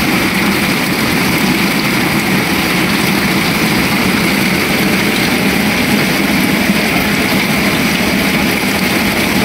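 Heavy rain pouring steadily onto floodwater, an unbroken hiss.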